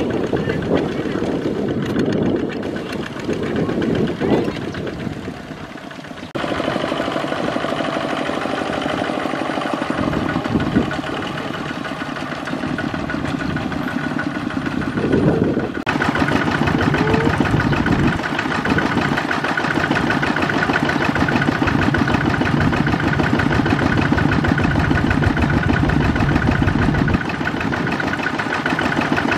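Single-cylinder diesel engine of a Kubota ZT155 two-wheel walking tractor running steadily while it hauls a trailer. Its sound changes abruptly about six seconds in and again about sixteen seconds in.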